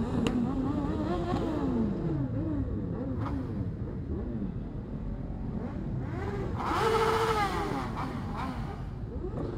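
Many motorcycle engines running in a slow-moving pack, their notes rising and falling as riders blip the throttle. One bike revs loudly about seven seconds in.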